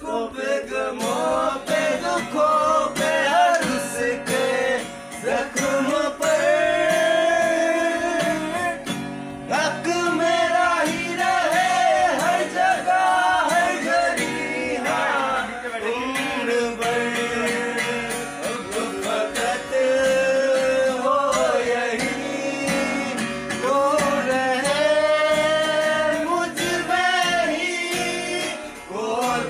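Two acoustic guitars strummed while young men sing a song along with them.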